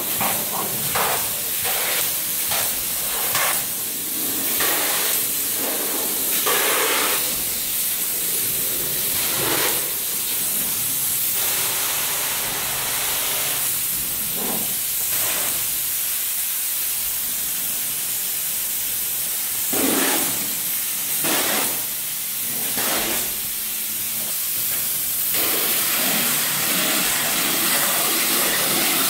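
Spray foam gun spraying open-cell polyurethane foam: a steady, loud hiss with short louder bursts now and then.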